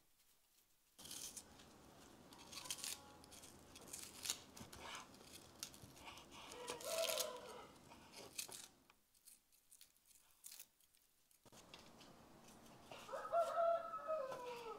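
A knife slicing raw beef on a wooden cutting board, a run of short cuts and taps. A rooster crows in the background, once around the middle and again, louder, near the end.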